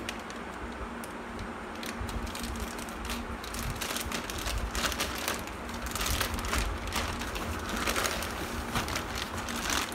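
A plastic parcel packet being opened and handled: irregular crinkling and rustling with scattered crackles, picking up about two seconds in.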